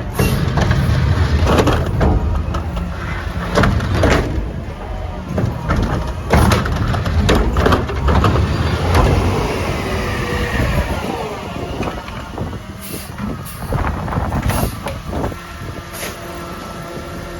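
Mack LR garbage truck with a McNeilus Meridian body at work: the diesel engine running heavily under load, with repeated metal clanks and knocks and a gliding whine from the hydraulics. Near the end the sound settles into steady tones.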